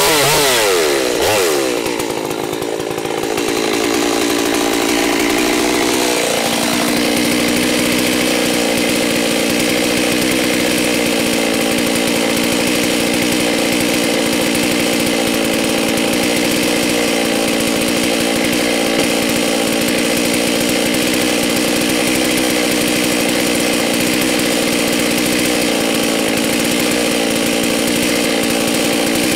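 G388 two-stroke chainsaw coming off full throttle at the end of a cut, its pitch falling in the first second, then running unevenly for a few seconds before settling into a steady idle.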